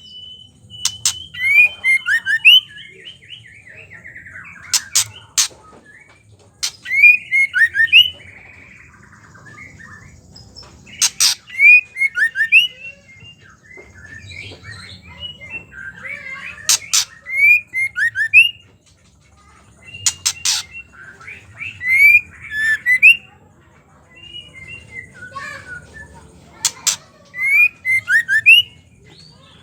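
Female white-rumped shama calling: loud bursts of sharp chattering notes and dry clicking rattles, the 'ketrek' call, repeated every few seconds. A faint low hum runs underneath.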